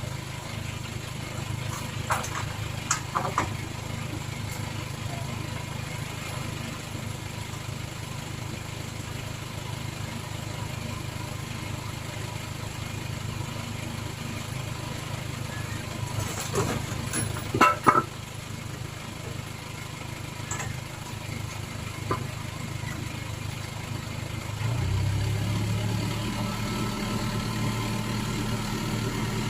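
Crane lorry engine idling steadily, with a few sharp metallic knocks; about 25 seconds in the engine speeds up and holds at a higher, louder pitch.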